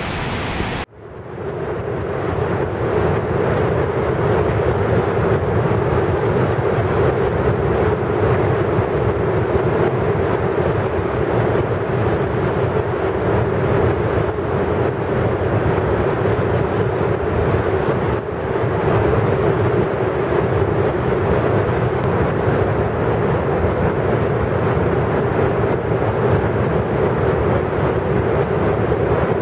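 Heavy, steady roar of a dam spillway discharging: high-pressure water jets shooting from tunnel outlets in the canyon walls, colliding mid-valley to break their energy and crashing onto the riverbed. There is a brief drop in the sound about a second in, then it carries on evenly.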